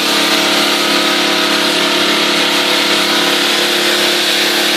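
Pressure washer running steadily: an even engine drone under the hiss of its high-pressure water spray.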